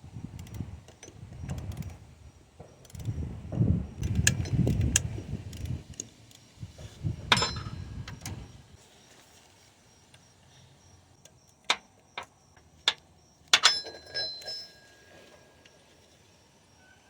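Hand tools on metal under the hood: a flex-head ratchet and 14mm socket being worked through the power steering pump pulley to its mounting bolt, with rattling and scraping for several seconds. Then several sharp metallic clinks, a few ringing briefly.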